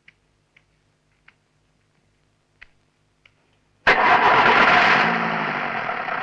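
A few faint clicks, then about four seconds in a passenger van's engine starts suddenly and keeps running loudly.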